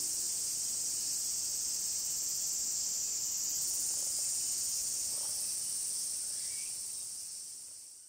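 A steady, high-pitched chorus of summer insects shrilling in the forest, fading out near the end.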